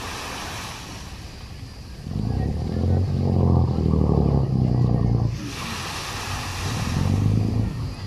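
Low, steady drone of a tour boat's engine, swelling about two seconds in and easing off a little after five seconds before returning briefly near the end, over small waves washing onto a pebble shore.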